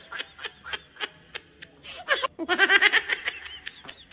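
High-pitched laughter in quick repeated bursts, several a second. It is quieter at first and grows louder again about two seconds in.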